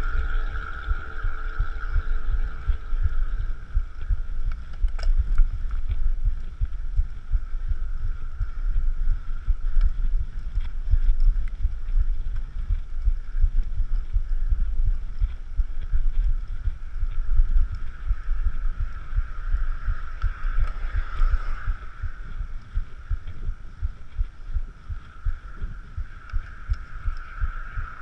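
A cyclist's heartbeat picked up through a chest-mounted GoPro while pedalling uphill: regular low thumps, with a steady higher hum over them that is strongest at the start and again near the end.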